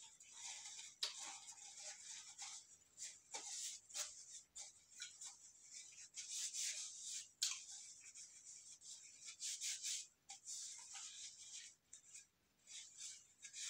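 Close-up chewing of a mouthful of food: irregular crackly, wet mouth sounds in uneven bursts with small clicks.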